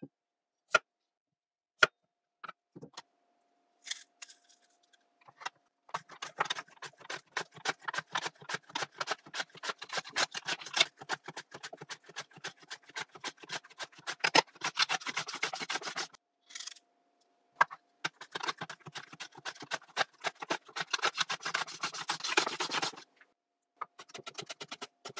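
Potato halves sliced on a plastic mandoline slicer: a fast, continuous run of slicing strokes, in two long bursts with a short pause between, after a few separate knocks of the potato and board being handled. Near the end a chef's knife begins tapping rapidly on the cutting board, cutting the slices into thin matchsticks.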